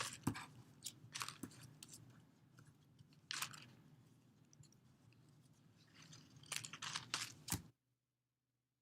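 Plastic bag crinkling and paper cut-outs rustling as the pieces are put into the bag, in short scattered crackles with a quieter stretch in the middle.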